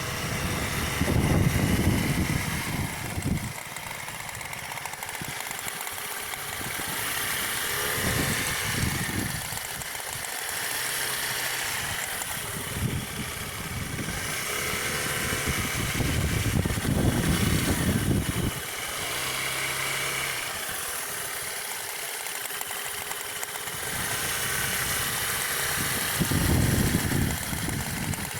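KYMCO GP scooter running while being ridden, with loud low rumbling stretches that come and go every few seconds. The owner reports an abnormal noise from it that appears only when turning left and vanishes when turning right.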